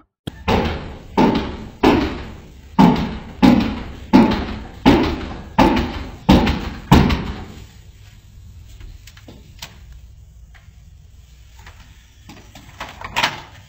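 Heavy pounding on a door: about ten loud bangs at a steady pace, each ringing briefly in the room, then stopping about seven seconds in. Faint room noise follows, with a couple of lighter knocks near the end.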